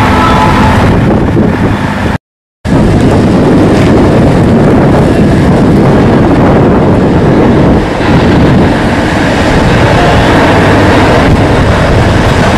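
Engine noise from a heavy-haul multi-axle transporter running steadily, mixed with loud wind noise on the microphone. The sound cuts out completely for a moment about two seconds in.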